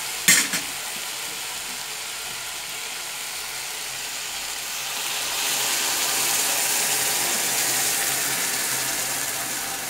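Beans sizzling in a pan on the stove as they are seasoned, a steady hiss that swells for a few seconds past the middle. A couple of sharp knocks just after the start.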